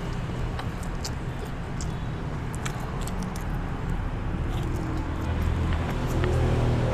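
A child slurping and chewing noodles, with scattered small wet mouth clicks, over a steady low rumble that grows a little louder near the end.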